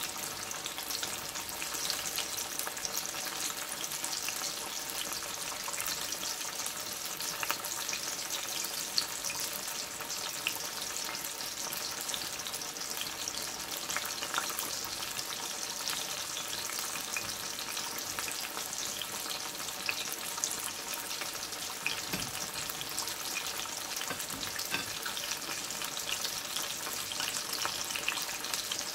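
Slices of boiled breadfruit deep-frying in hot oil: a steady sizzle with fine, constant crackling, the frying carried on until the chips are well done.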